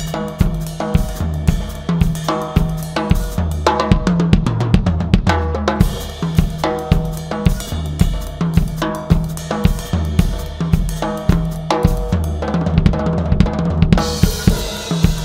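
Drum kit played solo in a busy Mozambique-style groove: a fast, steady run of strokes on the drums with ringing tones. Near the end, a cymbal crash washes over the beat.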